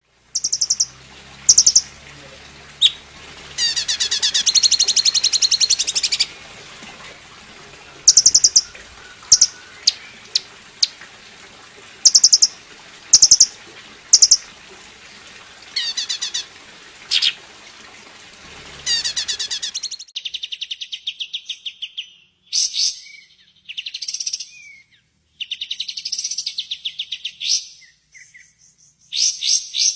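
Greater green leafbird (cucak ijo) song from a masteran training recording: loud, high-pitched chirping phrases and rapid trills, with a long trill about four to six seconds in. About two-thirds of the way through, the recording changes to a cleaner one with faster, near-continuous phrases.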